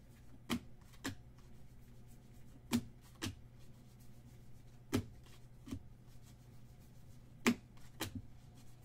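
Trading cards being handled: short, sharp clicks, mostly in pairs about half a second apart, over a faint steady hum.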